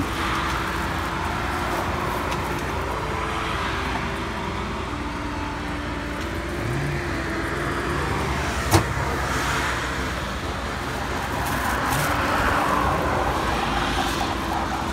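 Cars passing one after another on the road, their noise swelling and fading several times over a low steady hum. A single sharp click sounds about nine seconds in.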